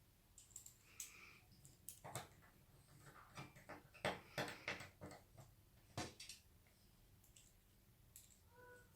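Scattered light clicks and knocks of computer parts being handled and fitted during a PC build, busiest about four to five seconds in, with a faint short tone near the end.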